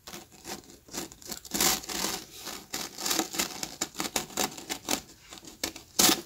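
Paper rustling and scraping in a quick, irregular run of rubs and crinkles as coloured paper strips are pulled up through a slit in a sheet of paper.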